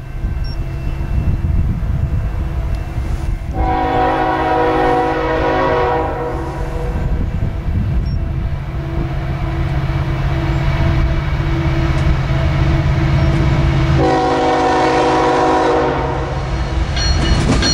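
Diesel locomotive air horn on an approaching BNSF coal train, led by an ES44DC, sounding two long chord blasts about ten seconds apart. Between and under them the locomotives run with a steady low hum that grows louder toward the end as the train nears.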